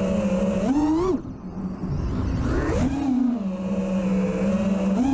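FPV quadcopter's Stout V3 brushless motors and props, on a 6S battery, whining in flight. About a second in the pitch rises, then the throttle is chopped and the whine drops away to a faint rush of air. It spools back up with a rising whine and settles into a steady drone.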